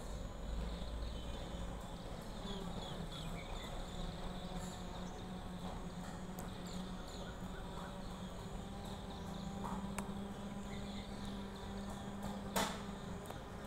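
Outdoor ambience: a low steady hum with scattered faint high chirps, and a single sharp click near the end. No peacock call is heard.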